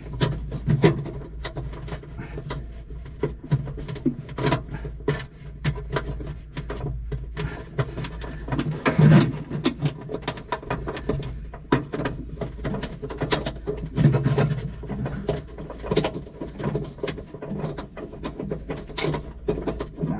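Irregular clicks, taps and clinks of hand work on metal fuel-line fittings as lines are fitted to an aircraft fuel shutoff valve, with a few short low grunts of effort, the loudest about nine and fourteen seconds in.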